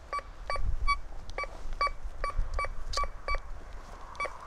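Golden Mask Coin Killer metal detector with a Spider 9-inch coil sounding short beeps of one pitch, about two a second, as the coil is swept over a thick piece of aluminium grill tray buried 5 cm deep.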